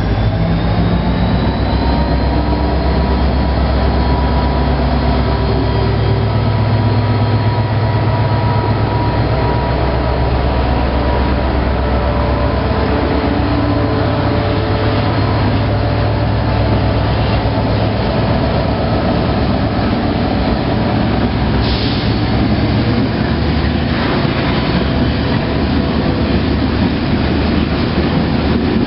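TCDD DE 33000-class diesel-electric freight locomotive (EMD 16-645E3C engine) passing close by at low speed, its engine running with a heavy low hum that fades after about 18 seconds as its freight hopper wagons roll past. Thin steady squealing tones from the wheels on the rails carry through, and the rolling of the wagons grows rougher near the end.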